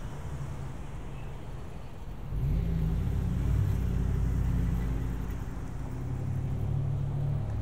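A road vehicle's engine running close by on a city street, growing louder about two seconds in as it passes or pulls away, then holding steady.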